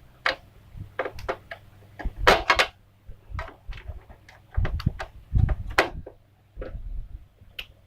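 Irregular clicks and knocks of a screwdriver working screws out of a plastic toy casing while the parts are handled, with a busier spell a little after two seconds and heavier knocks around five seconds. A faint steady low hum runs underneath.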